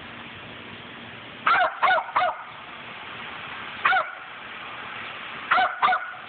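Small white dog yapping in short high-pitched barks as it plays at the spray from a garden hose: three quick barks, a single one a couple of seconds later, then two more near the end.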